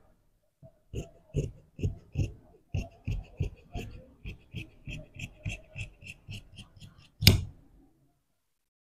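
Large steel tailor's shears cutting through suiting fabric on a cloth-covered table: a run of regular snips, about two or three a second, growing softer as the cut goes on, then a single sharp knock near the end.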